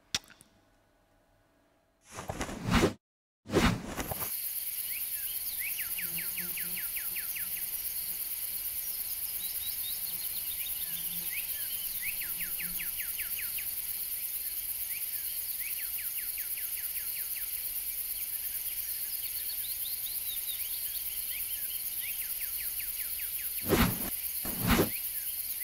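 Outdoor nature ambience under the end credits: a steady hiss with repeated trains of quick, high chirps. It starts after about two seconds of silence with two short, loud rushes of noise, and two more come near the end.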